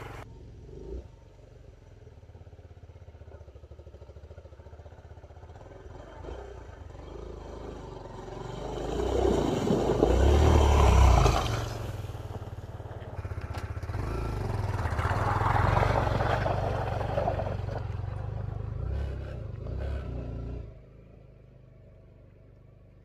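Kawasaki Z125 Pro's small single-cylinder engine revving as the bike rides off-road, swelling loud twice and fading between, then dropping away sharply near the end.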